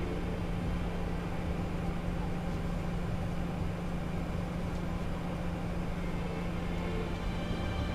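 Steady airliner cockpit noise: a constant engine and airflow hum over an even rushing drone.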